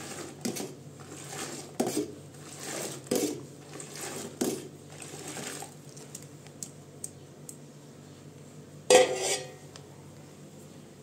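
A metal bowl knocks and scrapes against aluminium pots as milk is scooped from one pot and poured into another. There are several light clinks over the first few seconds and one loud metal clank about nine seconds in.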